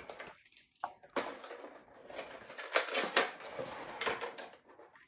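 A cardboard Funko Pop box being opened at its bottom flap and the packaging worked loose: a dense run of cardboard and plastic rustles and clicks, loudest near the middle.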